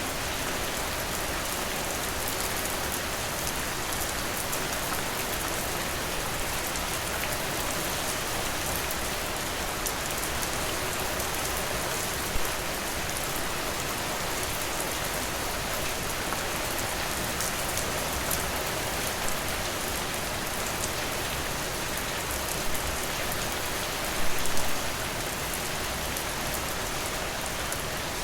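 Steady rain falling, a continuous hiss with fine individual drop hits, and a few louder single drops about halfway through and a cluster near the end.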